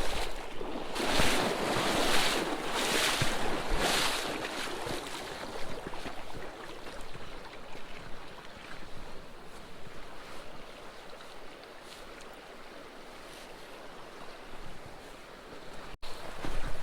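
Creek water running, with wind rushing over the microphone in about four gusts in the first few seconds, then a steadier, quieter wash that cuts off abruptly near the end.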